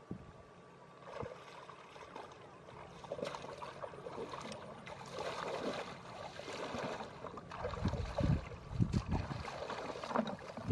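Shallow pond water sloshing and splashing irregularly as a person wades and gropes through it by hand, with a few deep rumbles near the end.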